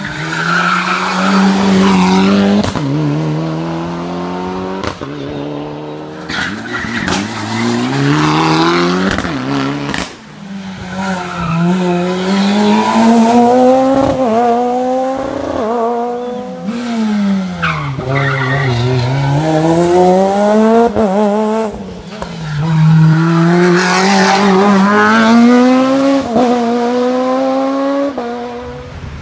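Rally cars on a tarmac stage driven hard one after another, engines revving up through the gears and dropping at each shift, again and again, with tyre squeal and several sharp cracks.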